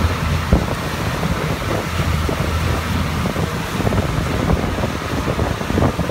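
Steady low rumble under rushing wind and rain noise, with many light scattered knocks, in a storm.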